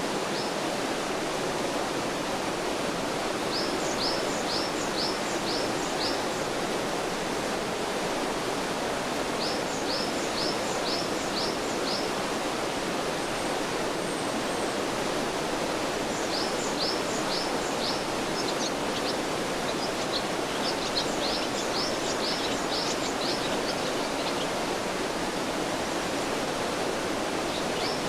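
Mountain stream flowing with a steady rush of water, while a small songbird sings several times: short runs of about five or six quick, high, downward-slurred notes.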